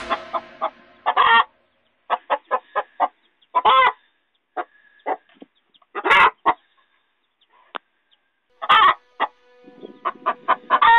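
Domestic hen clucking: runs of quick short clucks, about four a second, broken by a few longer, louder calls.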